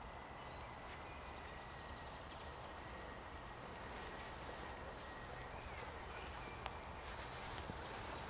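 Low steady rumble of a distant 2M62UM diesel locomotive hauling a freight train, with birds chirping briefly now and then.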